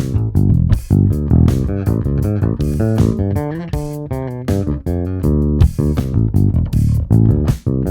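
Gibson EB 5-string electric bass (2013) being played: a steady run of plucked notes, several a second, each with a sharp attack.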